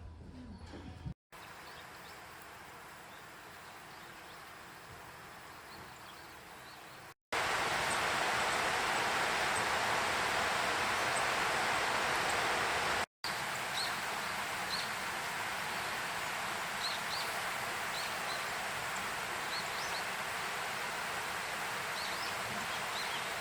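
Steady rush of river water through a rocky gorge, heard in several cut shots, the one in the middle loudest. Faint short bird chirps in the last shot.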